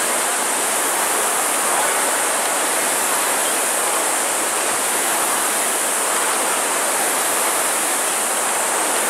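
Many Concept2 rowing ergometers' air-resistance flywheels whirring together, blending into a steady, loud rushing noise.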